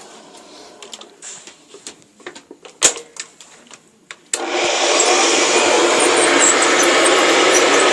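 A few scattered clicks and knocks of handling, then about four seconds in a vintage Hoover upright vacuum cleaner is switched on and runs steadily.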